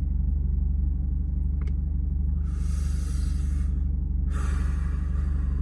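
Two long breaths of a man smoking a joint, drawing in and blowing out smoke, the first about two and a half seconds in and the second about four and a half seconds in. Underneath is a steady low rumble inside the car's cabin.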